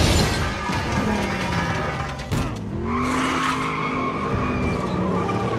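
Car chase: engines revving and tires skidding and squealing, with a loud crash right at the start and another sharp impact a little over two seconds in.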